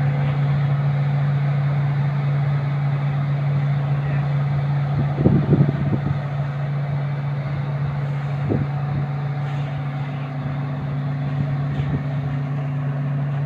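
Heavy diesel engine of the excavator running steadily at a low, even pitch, with a few short knocks about five seconds in and again about three seconds later.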